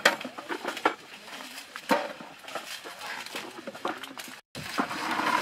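Grape pickers working in vines: scattered sharp clicks and snips with rustling of leaves and buckets, and faint voices in the background. The sound cuts out for a moment near the end.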